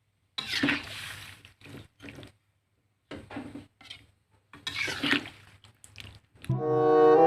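Short, irregular splashes of liquid food being stirred in a pot, several bursts with gaps between them, over a faint steady hum. Background music with bowed strings comes in near the end.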